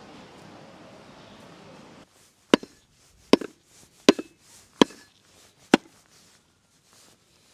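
A heavy cleaver chopping lamb meat and bone on a wooden board: five hard blows, about one every three-quarters of a second. A steady background hiss cuts off suddenly about two seconds in, just before the first blow.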